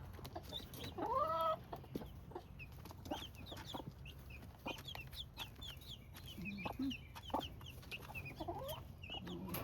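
A broody hen clucking among her guinea keets, which keep up a stream of short, high peeps. One clear call from the hen stands out about a second in, and another comes near the end.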